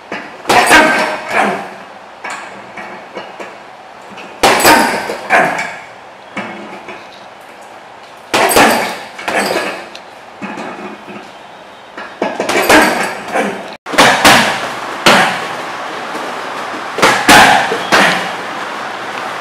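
Boxing-gloved punches and a knee strike landing on a heavy punching bag in quick groups of about three hits every four seconds: jab, cross, then knee. From about 14 seconds in, the same strikes land on Thai pads held by a partner.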